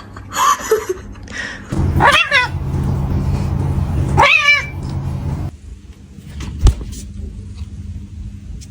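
Domestic cat yowling in protest: two long, wavering caterwauls about two seconds apart over a low rumbling growl, while it is being handled against its will. A sharp knock follows a couple of seconds later.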